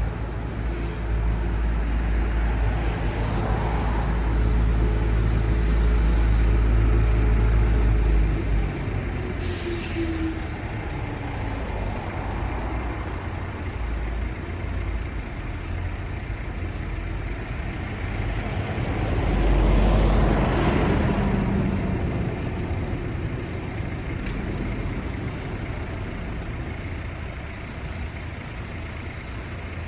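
City street traffic. A heavy vehicle rumbles low and close for the first eight seconds, a short sharp hiss comes about ten seconds in, and another vehicle swells past around twenty seconds in before the traffic settles to a steadier hum.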